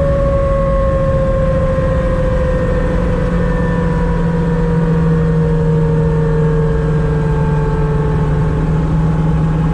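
Turbocharged car engine heard from inside the cabin, running off boost at light throttle as the revs ease down from about 3,000 to 2,200 rpm. A steady drone with a whine that slowly falls in pitch as the revs drop.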